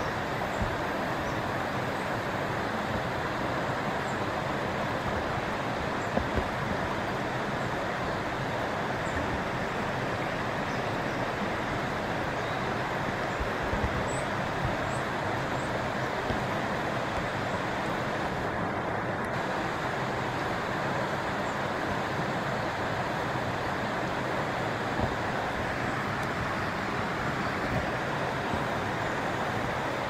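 Steady rushing of a shallow stream flowing around stepping stones, with a few faint, brief high chirps scattered through it.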